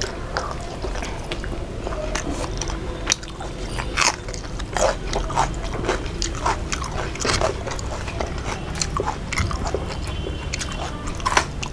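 Two people chewing and biting mouthfuls of fried fish, rice and leaf pakora eaten by hand, with many irregular wet smacks and small crunchy clicks.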